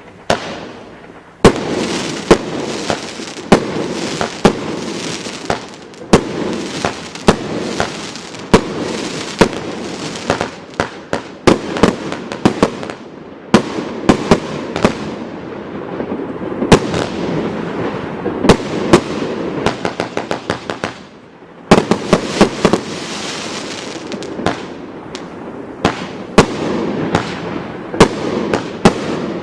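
A consumer F2 compound firework cake firing. It sends out a rapid string of sharp bangs, several a second, over a continuous dense rushing crackle. There is a brief lull about 21 seconds in, then the volley resumes.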